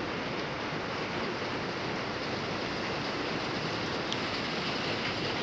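Steady heavy rain drumming on a carport roof.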